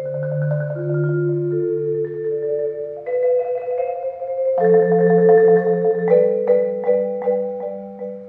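Four-mallet percussion quartet on marimba and vibraphone playing held, rolled chords that shift about three seconds in and again near five seconds, growing loudest there. From about six seconds separate struck notes ring and fade out.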